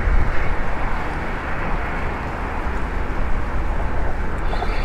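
Steady low rumbling outdoor background noise with no distinct events.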